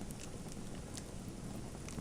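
Fireplace wood fire crackling: a few sharp, scattered pops over a steady low rumble of the burning.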